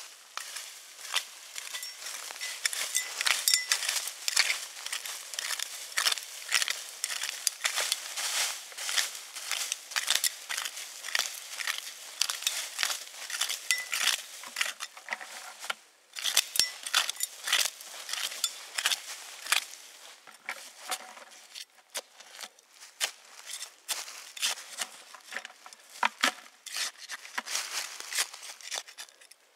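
Small metal hand scoop digging and scraping into forest soil under dry leaf litter, the leaves and grit crunching in quick, irregular strokes, with a brief pause about sixteen seconds in.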